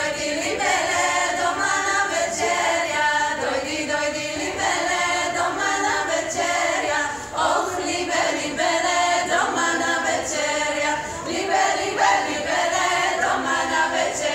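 Women's choir singing a cappella, several voices together in short sung phrases.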